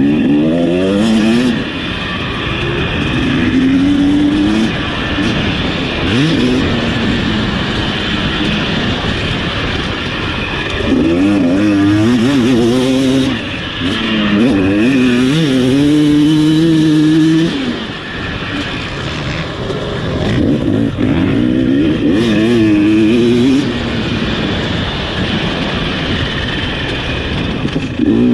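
Husqvarna TC250 two-stroke motocross bike ridden hard, heard close up from onboard. The engine revs up in repeated bursts of throttle and drops back between them, about half a dozen times.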